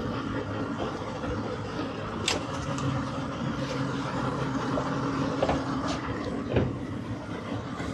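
Boat engines idling steadily, with a few sharp knocks, the loudest about six and a half seconds in.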